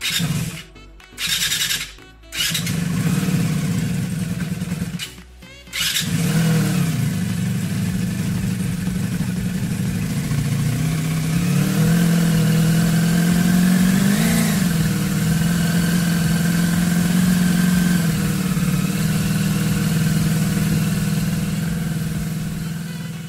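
Honda VF500F's 500 cc V4 engine being started from cold: a couple of short bursts, then it catches about two seconds in, drops away briefly near five seconds and picks up again, settling into a steady idle with one short rev rising and falling about halfway through. It is being warmed up so the oil will drain.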